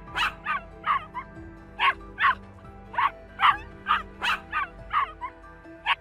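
A dog barking in short, sharp yaps, about a dozen in loose groups of two or three, over soft background music.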